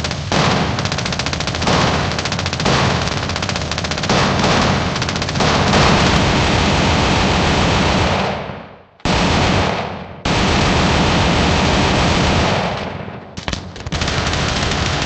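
Rapid, continuous machine-gun fire, a dense stream of shots that fades out about eight seconds in, then cuts back in abruptly for several more stretches separated by brief gaps.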